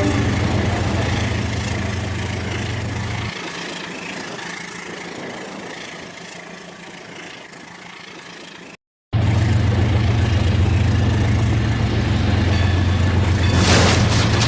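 Rail King toy train running with a steady low mechanical hum that fades away over the first several seconds. The hum starts again after a short break about nine seconds in, with a brief hissing burst near the end.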